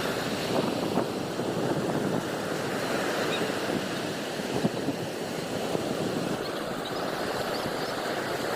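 Steady rushing of sea waves and wind.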